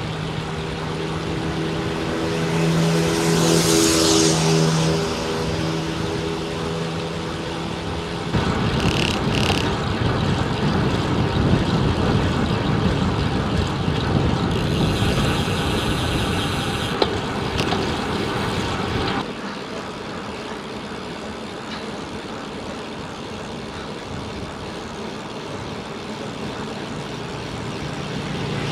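Wind rushing over the microphone and road noise from a road bike moving at about 30–40 km/h. A motor vehicle passes in the first few seconds. The noise jumps louder about eight seconds in and falls back after about nineteen seconds.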